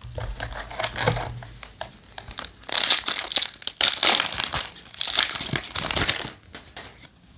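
Foil wrapper of a Yu-Gi-Oh! booster pack crinkling and tearing as it is opened by hand. It starts with light rustling, and the crinkling is loudest and most dense through the middle few seconds, then dies down.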